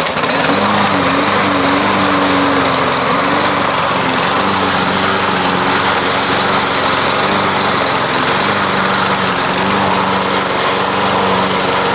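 Lawn-Boy 10632 self-propelled walk-behind mower's engine running steadily with a slight waver in pitch, during a test run after fitting a new drive belt.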